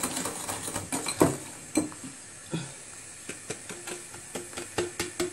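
Wire whisk stirring a thick egg-yolk, sugar and starch mixture in a bowl, clicking and scraping against its sides in irregular strokes, the loudest tap a little over a second in.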